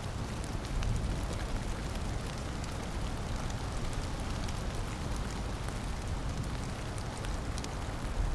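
Storm sound effect: steady heavy rain, with many scattered sharp drop ticks, over a continuous low rumble that swells slightly about a second in and again near the end.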